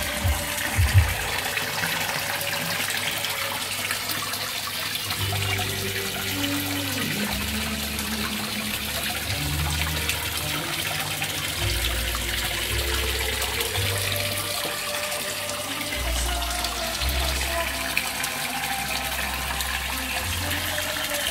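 Water splashing and pouring steadily into a koi tank from the filter return outlets and a spillway waterfall, with a few knocks about a second in.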